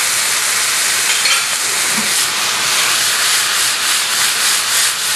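Bell peppers and capers sizzling steadily in hot oil and red wine vinegar in a skillet, a loud hiss, with a wooden spoon stirring through them.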